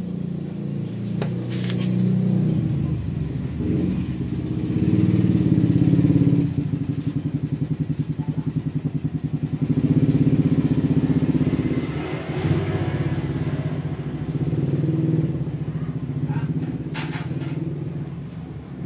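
A motor vehicle engine running steadily, its pitch and loudness rising and falling, with a fast pulsing stretch about halfway through.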